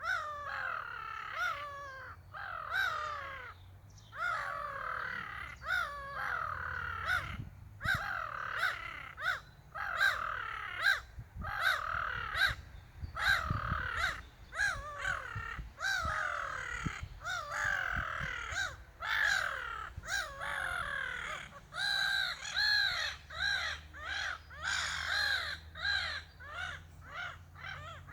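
Seagulls calling back and forth: a near-continuous run of short, repeated squawking calls, each bending in pitch.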